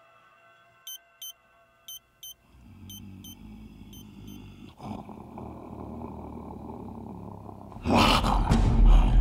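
Film sound effects: four pairs of short electronic beeps, then a low rumble that builds. Near the end, loud dramatic music breaks in with heavy drum hits.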